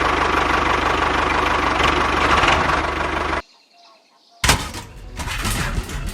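Small engine of a DIY mini tractor running steadily with a fast, even beat, cutting off abruptly about three and a half seconds in. After about a second of near silence comes a sudden loud clatter that fades out.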